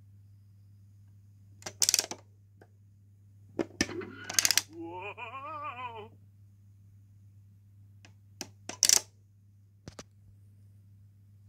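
VTech Gadget learning robot on low batteries: a few sharp clicks and knocks, and about four and a half seconds in a short electronic sound from its speaker, over a second long, whose pitch wobbles quickly up and down. A steady low hum runs underneath.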